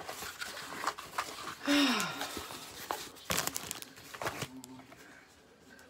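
Packaging crinkling and rustling as a parcel is handled and unwrapped, in a series of short crackles. About two seconds in comes a brief falling vocal sound like a sigh or groan.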